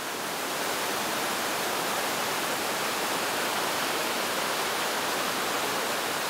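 Steady rush of a mountain river's flowing water, fading in over the first second and then holding even.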